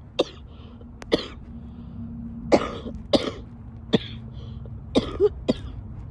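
A woman coughing wetly: about eight short coughs, the last three close together.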